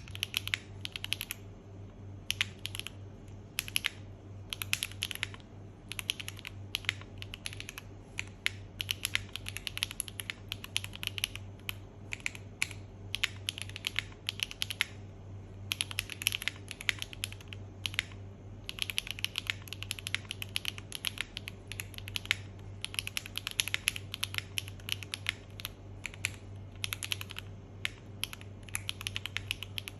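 Typing on an Enter67 v1 mechanical keyboard: a steady stream of key clacks at typing speed, with short pauses here and there, over a faint low hum.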